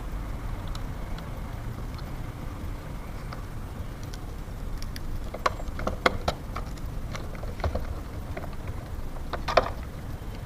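Scattered sharp metallic clicks and taps of a hinge-bending tool and Allen key being worked on a metal door-frame hinge, loudest about halfway through and near the end, over a steady low rumble.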